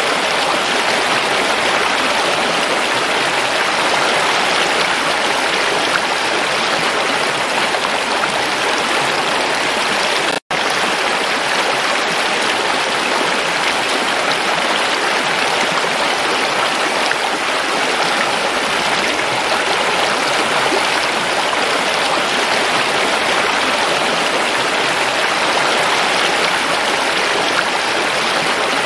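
Shallow mountain stream rushing and splashing over rocks in small cascades, a steady, dense water noise. It drops out for a split second about ten seconds in.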